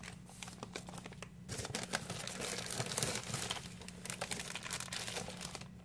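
Clear plastic fish shipping bag crinkling and rustling as it is handled. A few scattered crackles at first turn to dense crinkling from about a second and a half in.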